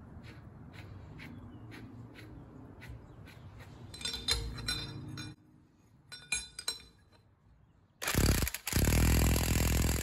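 Hand tools working on an axle nut: evenly spaced clicks about two a second, a louder scrape about four seconds in, then a few sharp metal clinks. A loud harsh burst of noise fills the last two seconds.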